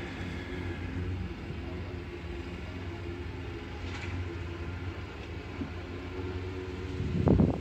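A vehicle's engine idling with a steady low hum, heard from inside the vehicle. A short, loud low thump comes near the end.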